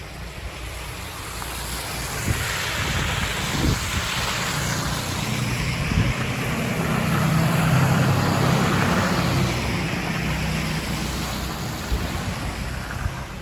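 A road vehicle passing on a snowy street, its engine and tyre noise swelling over several seconds, loudest about eight seconds in, then fading. Wind buffets the microphone throughout.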